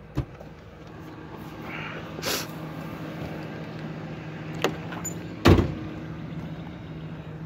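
Car door being opened and then shut with a solid thud about five and a half seconds in, with a few lighter knocks and clicks before it. A steady low hum runs underneath.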